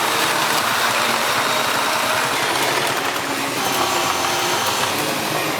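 Machinery running steadily: an even, hissing mechanical noise with a faint hum underneath and occasional light ticks.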